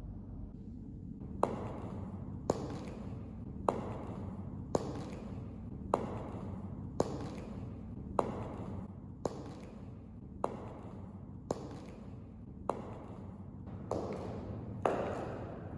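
High-heeled pumps clicking on a polished terrazzo floor in slow, even steps, about one a second, starting a little over a second in; each click rings briefly in the bare room. A low steady hum lies underneath.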